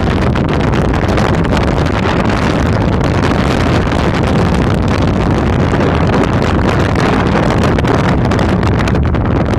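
Strong wind buffeting a phone's microphone held out of a window: a loud, steady, rough rushing.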